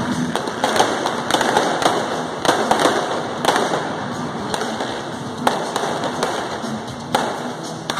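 An irregular series of sharp pops and bangs from the stunt show's effects, densest in the first three and a half seconds, with single louder cracks later on.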